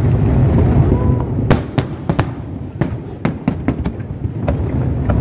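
Aerial fireworks shells bursting: a quick string of sharp bangs, clustered from about a second and a half to four seconds in, over a steady low rumble.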